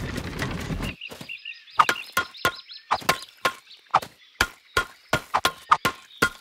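Cartoon sound effects of ice being worked. A heavy wheeled cart carrying a big block of ice rumbles to a stop in the first second. Then a hammer drives a chisel into the ice in many sharp ringing taps, which come faster toward the end as the block is carved.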